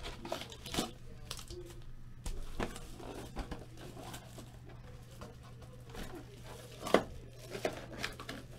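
Trading-card packs and a cardboard hobby box being handled: scattered crinkling and rustling with light taps, and one sharp click about seven seconds in.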